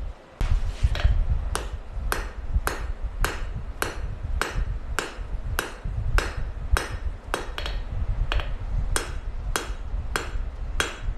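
Hand hammer striking hot steel on an anvil at a steady pace, about two blows a second, setting a forge weld of a mild steel pocket onto a coil-spring steel blade end. A steady low rumble runs underneath.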